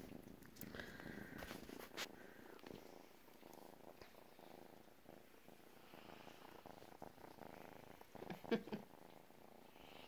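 A cat purring softly, close up, while it is stroked. A short louder noise comes about eight and a half seconds in.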